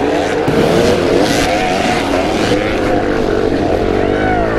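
Several dirt bike engines, a small KLX110 pit bike among full-size enduro bikes, revving hard as the riders pull away together at a race start. One engine revs up sharply near the end.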